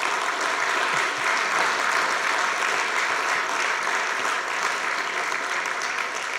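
Lecture-hall audience applauding, sustained and even, fading slowly toward the end.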